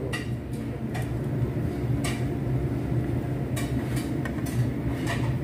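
Stainless steel tongs clicking and tapping against a plate and grill a handful of times at irregular intervals, over a steady low hum.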